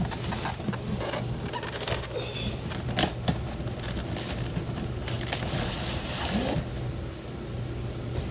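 Cardboard packing spacers being pulled out and handled: crackling and scraping cardboard, with a couple of sharp knocks about three seconds in and a louder stretch of rustling about two-thirds of the way through. A steady low hum runs underneath.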